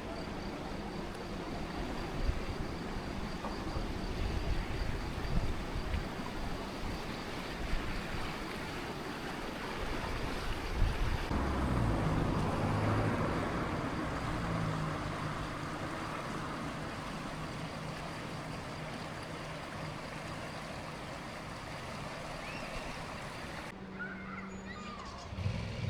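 Aare River water rushing steadily through the gorge. About halfway through, a low steady hum joins it.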